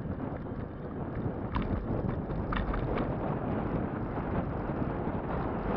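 Wind buffeting the microphone of a bike-mounted camera, over the rumble of an e-bike's tyres rolling on the road. A few short rattles come in between about a second and a half and three seconds in.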